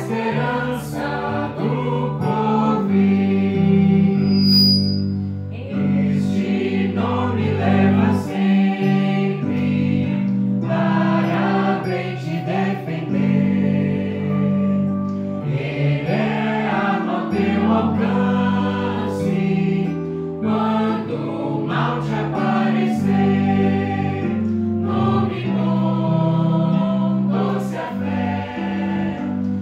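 Portuguese-language congregational hymn sung by two women's voices over keyboard and acoustic guitar accompaniment, with sustained chords under the melody.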